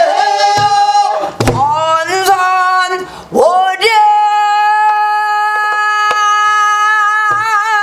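A woman singing pansori, with two strokes on a buk barrel drum about a second and a half and almost four seconds in. The last note is held for about three seconds and wavers with vibrato near the end.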